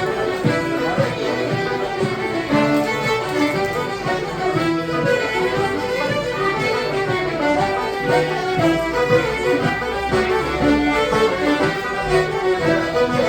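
Live traditional Irish music played in a bar, led by a fiddle, with a continuous run of quick notes.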